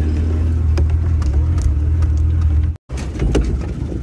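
Car driving: a steady low engine and road drone with light clicks and rattles. It cuts out for an instant about three-quarters of the way through, then carries on.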